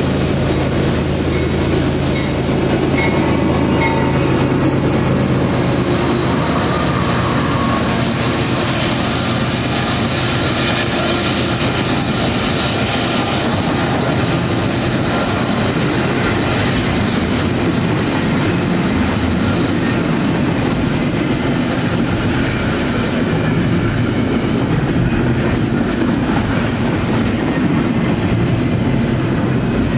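Freight train passing close: the lead diesel locomotives' engines running as they go by, then double-stack container cars rolling past with continuous wheel and rail noise.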